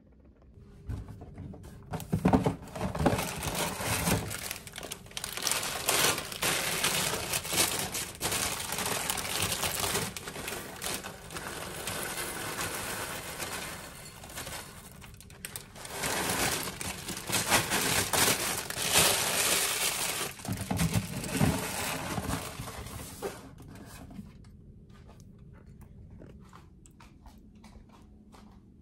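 Crinkling, crunching rustle of something being handled, in two long stretches with a short lull about halfway. It dies down about 23 seconds in.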